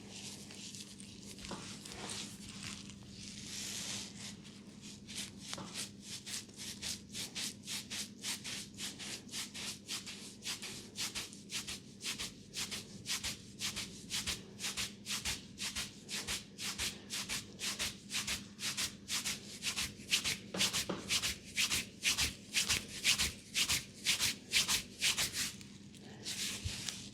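Hands rubbing briskly over hair and scalp in a head massage: soft brushing at first, then a few seconds in a fast, even run of rubbing strokes, about three a second, that stops shortly before the end.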